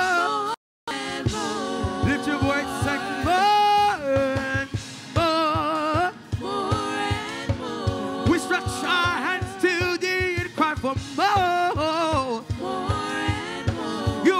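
Gospel praise team vocalists singing with runs and vibrato over accompaniment with a steady low beat. The sound cuts out completely for a moment about half a second in.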